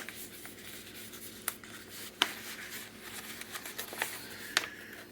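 Hands unfolding a tightly folded cloth handkerchief: soft rustling of fabric with a few sharp little clicks and ticks from handling.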